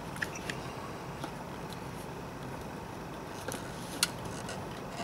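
Faint clicks and light ticks from the plastic airbag module and its wiring connectors being handled, with a sharper click about four seconds in.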